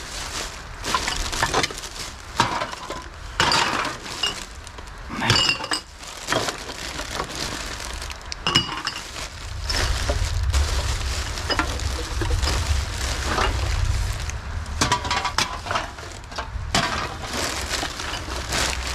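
Empty aluminium drink cans and bottles clinking and clattering as they are handled and tossed onto a pile of cans, in many short, irregular knocks. A low rumble runs under the clatter for a few seconds midway.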